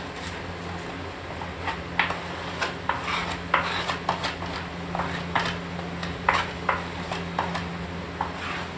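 Fevicol white wood glue being spread over a plywood panel with a flat spreader: a run of short, irregular scraping strokes, starting about two seconds in.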